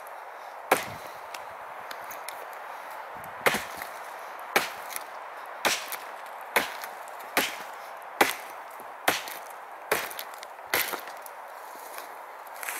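Gränsfors Bruks Small Forest Axe chopping into a dead log: about ten sharp blows, one near the start and then, after a pause, a steady run of strikes roughly one a second.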